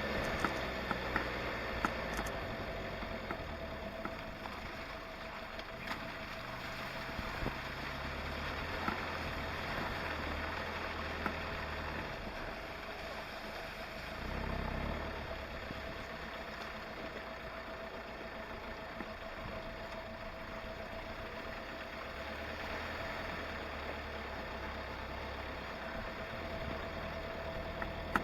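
Vehicle engine idling steadily, with scattered small clicks and knocks.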